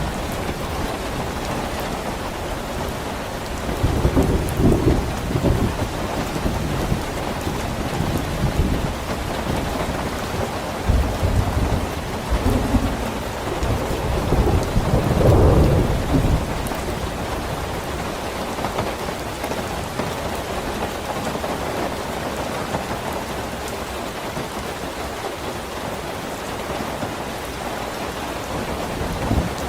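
Steady heavy rain with rolls of thunder: low rumbles swell about four seconds in, again around eleven seconds, and loudest at about fifteen seconds, then fade back under the rain.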